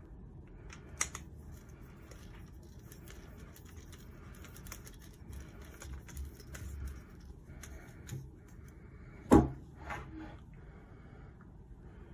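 Small clicks, scrapes and rattles of a mini tripod table being assembled by hand: an aluminium tripod pole is screwed onto the threaded stud of a black metal base. A sharp knock about nine seconds in is the loudest sound, with a lighter one just after it.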